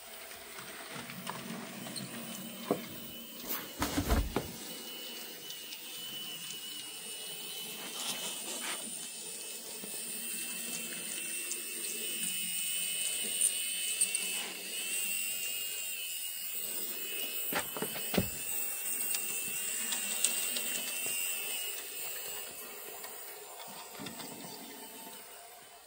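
Small electric motor of a TT-scale Tillig BR 23.10 model steam locomotive whining steadily as it runs on the track, its pitch wavering slightly, with a few sharp clicks along the way.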